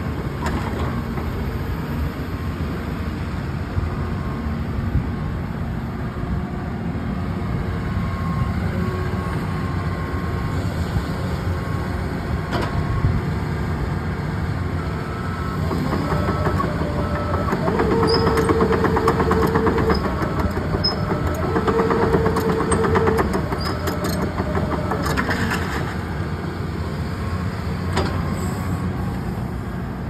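Cat 312E tracked excavator's diesel engine running under load while the machine swings and works its boom, with hydraulic and track noise. Partway through it grows louder and two steady whines of about two seconds each sound, one shortly after the other.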